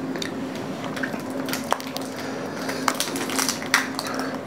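Scattered small clicks and crinkles of pastries being eaten: forks working through cake and touching plates, and a clear plastic pastry sleeve being handled. A steady low hum runs underneath.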